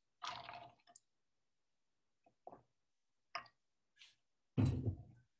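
Mostly quiet pauses, broken by short, faint murmurs from a man's voice, the clearest one near the end.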